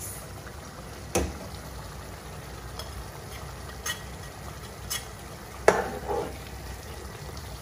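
Beef curry simmering and sizzling in a pot while ground spices are scraped off a plate into it with a metal spoon. A few sharp taps of the spoon against the plate and pot stand out, the loudest about three-quarters of the way through.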